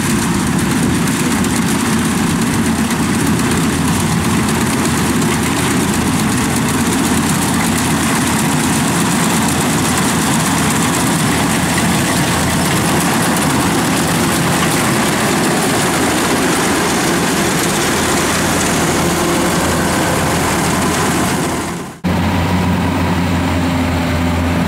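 Kubota rice combine harvester working at full load, its engine and threshing machinery making a loud, steady mechanical din as it cuts the crop. About 22 seconds in it cuts off abruptly, replaced by the steadier, lower hum of a tracked rice-hauling carrier's engine running.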